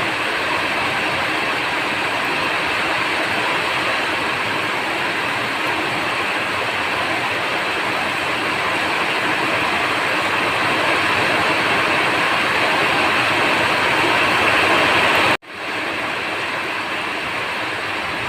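Steady rainfall, an even rushing patter that breaks off for an instant about fifteen seconds in and then carries on.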